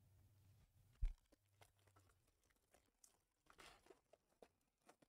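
Foil trading-card pack being torn open and crinkled by hand, faint, with a soft thump about a second in and a crinkly rustle of the wrapper a few seconds later.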